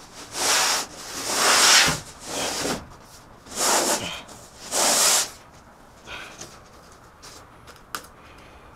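A large sheet of sanded plywood scraping and sliding against the van's floor and walls as it is shifted into place. It comes in five short rubbing strokes during the first five seconds, then goes quieter with a single sharp click near the end.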